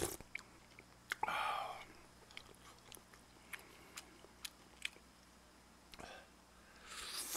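A person eating close to a microphone: two slurps of udon noodles and broth, about a second in and near the end, with chewing and small sharp clicks in between.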